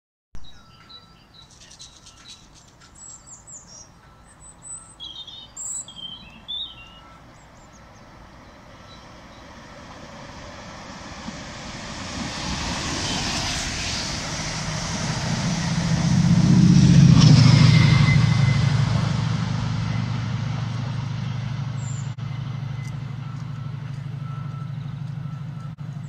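Chiltern Railways passenger train, a Mk3 driving van trailer at the front and a Class 68 diesel locomotive pushing at the rear, approaching and passing beneath at speed. The train noise grows over several seconds to a peak about two thirds of the way through, as a low, steady locomotive engine drone comes in and then stays as the train moves away. Small birds chirp during the first few seconds.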